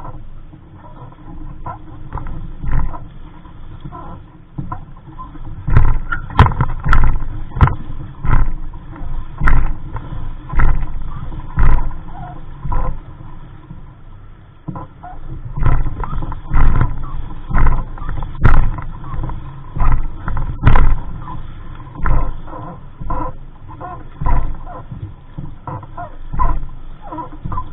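Wind rumbling on the microphone aboard a small sailboat, with irregular sharp slaps and knocks from the boat about once a second. The slaps come in two busy runs, one a few seconds in and another past the middle.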